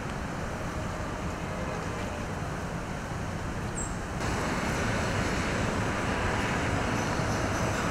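Steady outdoor city din: a low rumble of traffic. About four seconds in it jumps abruptly to a louder, brighter street noise of traffic.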